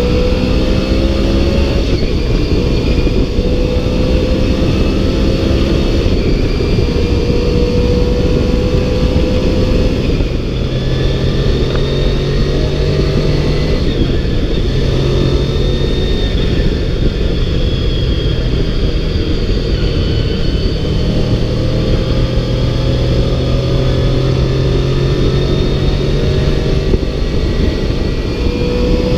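Honda VFR motorcycle's V4 engine under way, its pitch climbing through the gears and then holding steady at cruising speed, with wind noise rushing over the microphone.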